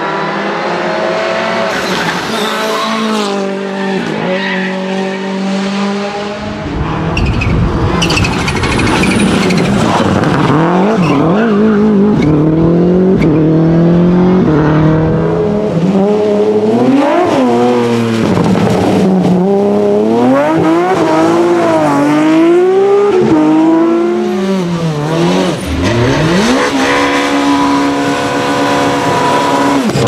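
Rally cars driven hard on a tarmac stage, several in turn: engines rev high, drop back at gear changes and lift-offs, and climb again, over and over.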